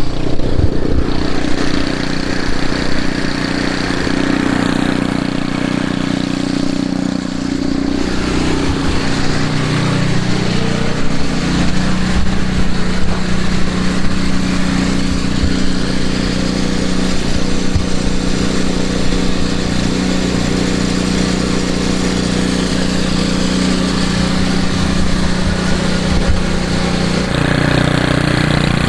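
An engine running steadily, its pitch shifting a few times.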